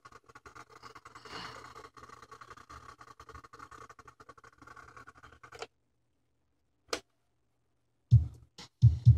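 Advent 201 cassette deck fast-winding a tape: a steady mechanical whir with a low hum and light ticking from the transport, which stops about five and a half seconds in. A single sharp click follows, then loud thumps near the end.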